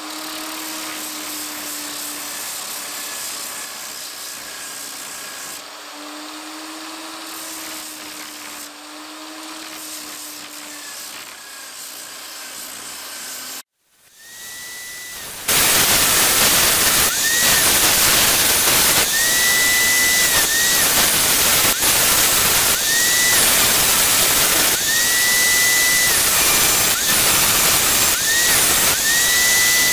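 Angle grinder clamped to a bench as a disc sander, running with a wooden board pressed against its sanding disc: a steady motor whine over the hiss of sanding, the pitch sagging as the wood bears on the disc. About halfway through the sound cuts out briefly, then returns much louder, the whine dipping again and again as the wood is pressed on and eased off.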